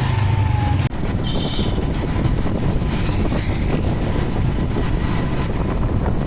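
Steady road noise from riding along a street: a vehicle engine and wind rumbling on the microphone, with a brief dropout about a second in.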